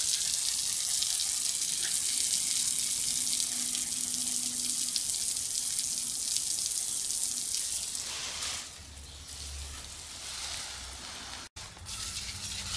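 Garden hose spray nozzle shooting water onto stone paving, a steady hiss of spray. It eases off about eight and a half seconds in and breaks off for an instant near the end.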